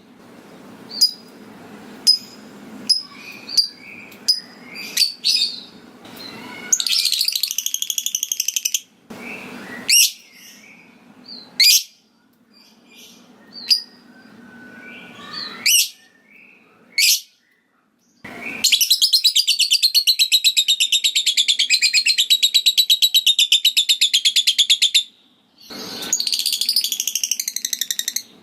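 Lovebird calling: a run of short, sharp ticking chirps about a second apart, then scattered calls. About two-thirds of the way through comes a long, rapid chattering trill lasting about six seconds, the lovebird's 'ngekek', with another shorter burst near the end.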